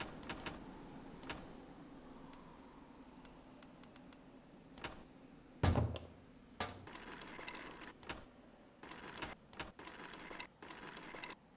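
Foley sound effects: scattered small clicks, taps and rattles of objects being handled, over a low hum that fades early on, with a louder thump about six seconds in and a smaller one just after.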